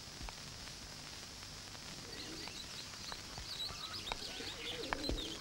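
Birds chirping and a dove cooing, beginning about two seconds in over a faint steady hiss.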